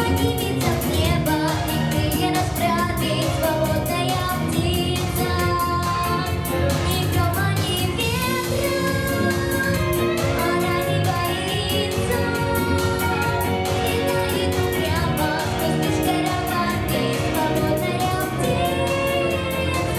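A female voice singing a pop song over a backing track with a steady beat.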